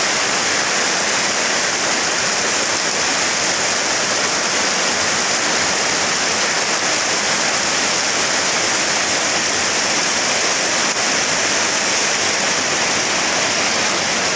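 Heavy rain falling in wind, a steady, dense hiss.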